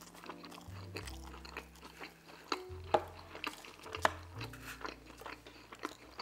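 Mouth sounds of chewing a bite of pepperoni pizza: wet smacks with a few sharp clicks. Soft background music with low held bass notes plays underneath.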